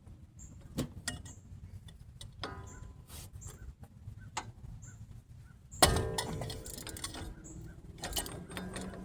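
Metal hand tools clinking and tapping against the wheel hub parts, then one loud metallic clank with a short ring about six seconds in, followed by more clatter, as a fastener is being broken loose.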